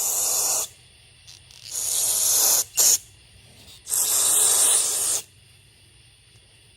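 Aerosol carburetor cleaner sprayed in hissing bursts into a chainsaw carburetor's ports and passageways: three bursts of about a second each and one very short burst, then it stops about five seconds in.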